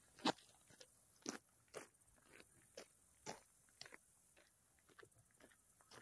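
Faint, irregular crunching footsteps on dry ground, moving away: the first step about a third of a second in is the loudest, and the rest grow fainter.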